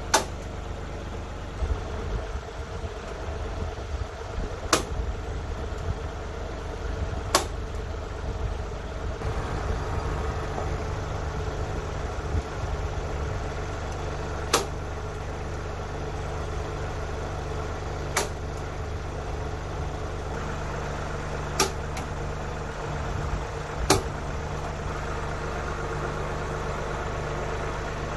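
Tractor engine idling steadily, with seven sharp clicks scattered through it.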